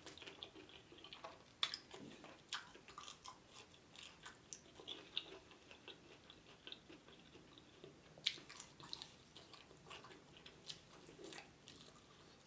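Faint close-miked chewing of fried chicken wings: irregular soft crunches and wet mouth clicks, with two sharper clicks, one just under two seconds in and one about eight seconds in.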